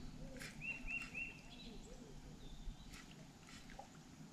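A bird calling faintly: a quick run of three arched, chirping notes about half a second in, followed by a few light clicks.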